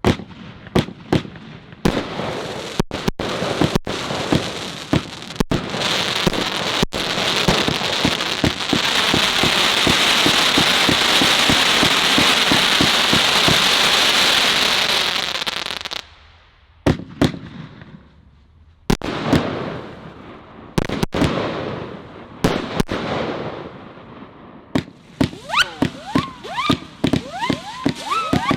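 A 76-shot firework cake with 30 mm tubes firing: sharp launch bangs, then a long stretch of dense crackling hiss, then separate bangs. Near the end come shrill whistles that glide in pitch among quicker pops.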